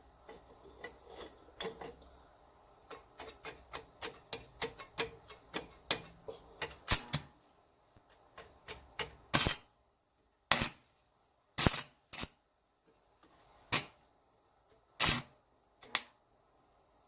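Arc welder tacking steel spinner plates onto a target: a fast run of sharp crackling clicks for about the first seven seconds, then about eight short separate bursts of arc crackle with pauses between.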